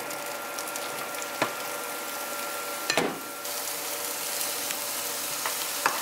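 Chopped red bell pepper sizzling in hot oil in a frying pan as it is stirred, a steady hiss with two sharp clacks about one and a half and three seconds in. The sizzle brightens after about three and a half seconds.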